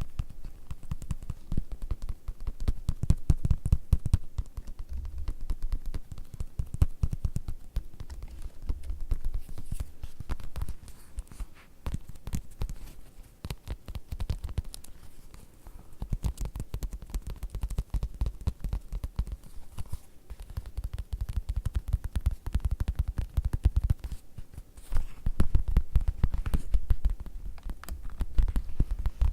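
Rapid, continuous tapping on leather: many soft, dull taps a second with a deep body, swelling louder and easing off in spells.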